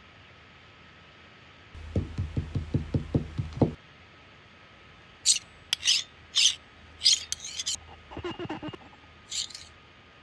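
A quick run of about ten low knocks, then several short scraping or rubbing strokes, a brief flutter of small clicks, and one last scrape: foley sound effects.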